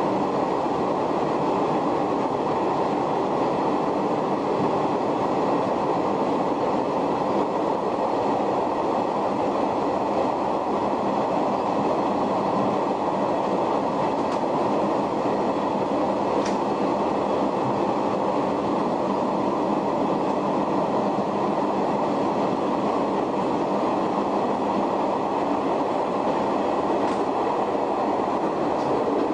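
Shin-Keisei 500-series electric train with nose-suspended traction motors running steadily, heard from the cab: an even rumble of wheels and motors with faint steady tones above it. Two faint ticks come about two-thirds of the way through and near the end.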